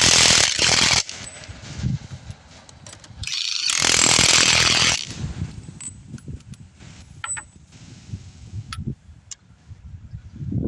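Impact wrench run in two loud bursts of about a second and a half each, spinning the lug nuts tight on a truck wheel, followed by light metal clicks and clinks.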